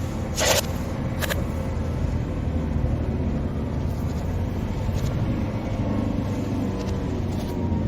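Car driving at a steady pace: a continuous low engine and road rumble. A sharp click sounds about half a second in, with a fainter one just after a second.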